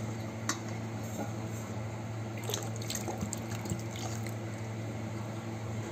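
Water poured from a small scoop into a steel bowl of thick wheat-flour batter to thin it, over a steady low hum.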